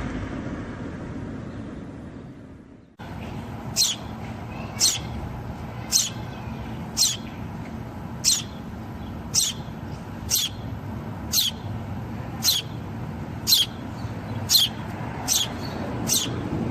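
A vehicle going by, fading away over the first few seconds; then, after a sudden cut, a bird calling about once a second, each call a short high whistle sliding down in pitch, over a steady low background hum.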